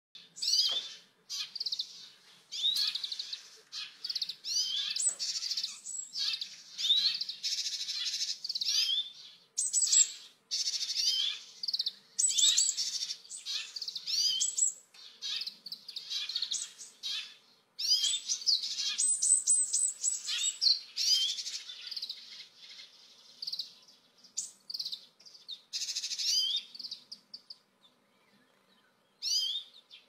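Oriental greenfinch (grey-capped greenfinch, Chloris sinica minor) singing: phrases of rapid twittering chirps and trills, broken by short pauses, with a longer pause near the end.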